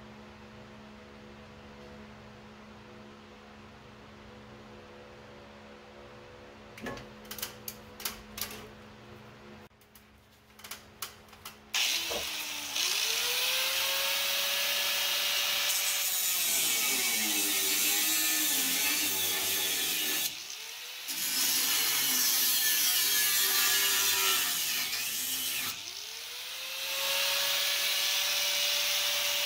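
A few clicks and knocks, then about twelve seconds in an electric angle grinder with a thin cutoff wheel spins up with a rising whine and cuts through the rusted sheet metal of a truck cab corner, the whine sagging and wavering as it cuts. It stops briefly twice and spins up again.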